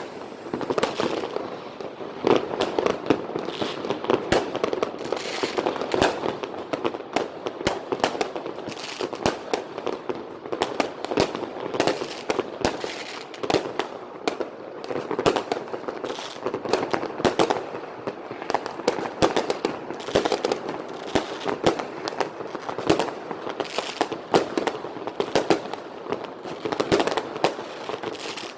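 Fireworks and firecrackers going off continuously: a dense, irregular barrage of bangs and pops, several a second, over a steady crackle.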